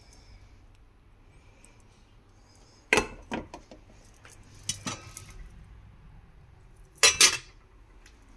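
Glass pan lid and cookware clinking and knocking on a gas stove: a sharp clink about three seconds in, a few lighter clinks around five seconds, and the loudest clatter about seven seconds in as the glass lid is moved.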